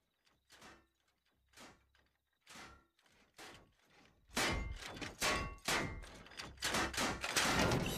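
Heavy footsteps, about one a second and growing louder, followed by a quicker run of louder thuds and knocks from about four seconds in.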